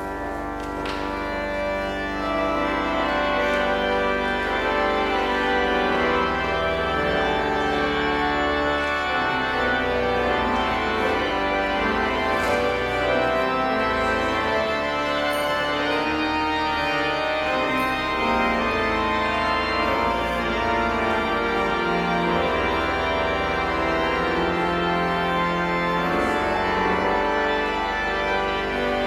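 Church organ playing slow, sustained full chords, accompanying the entrance procession at the start of the service.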